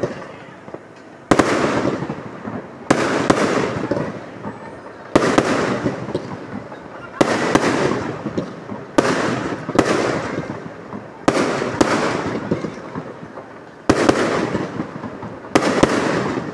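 Aerial fireworks going off in a rapid series: more than a dozen loud bangs, one every second or two and some in quick pairs, each trailing off in a long fading echo.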